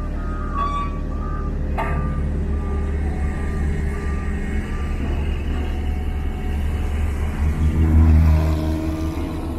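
Diesel engine of a heavy road-construction machine running while its reversing alarm beeps about two to three times a second, the beeps fading out about halfway through. A single sharp knock comes about two seconds in, and the engine grows louder near the end.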